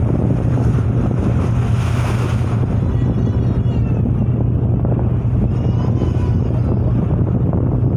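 Wind rushing across the microphone aboard a moving ship, over a steady low hum from the ship's engines.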